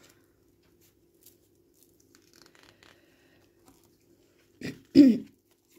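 Faint rustling and ticking of tarot cards being handled over a faint steady hum. Near the end come two brief louder sounds, the second with a falling pitch.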